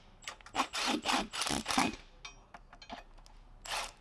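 Hand ratchet snugging down the recovery point's mounting bolts: a series of short ratchet runs on the back-strokes, several quick ones in the first two seconds, then fainter, with one more near the end.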